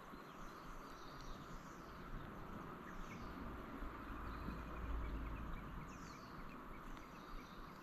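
Birds calling with short falling chirps several times over a steady outdoor hiss, with a low rumble building up around the middle.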